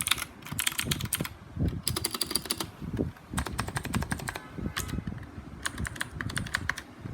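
Typing on a mechanical keyboard fitted with new keycaps, as a sound test. The keystrokes come in quick flurries of clicks and clacks with short pauses between them.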